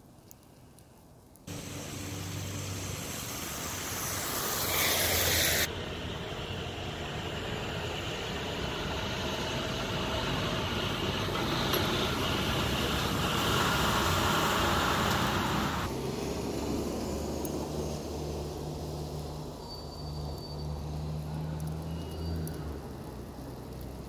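Motor vehicle traffic noise: engines running under a steady hiss. The sound changes abruptly about six seconds in and again about sixteen seconds in, after which a steady low engine hum holds.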